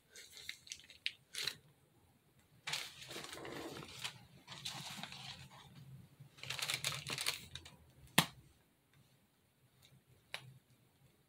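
Plastic piping bag full of spackle crinkling and rustling in short bursts as it is twisted and squeezed, with one sharp click a little past eight seconds in.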